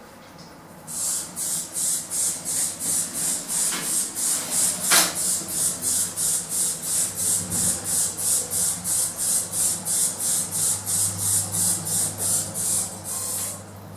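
A lift giving off a rapid, even hissing, 'psst, psst, psst', about three hisses a second. It starts about a second in and stops just before the end, with a low hum beneath it.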